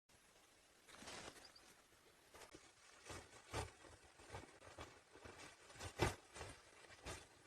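Footsteps crunching in snow, an uneven few steps a second, with one sharper, louder crunch about six seconds in.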